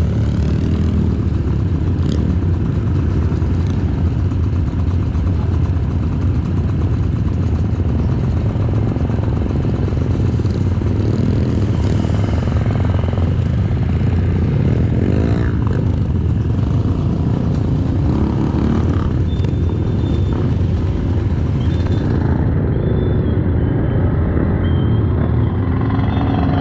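Trail motorcycle riding along with its engine running steadily, a continuous low rumble with no pauses.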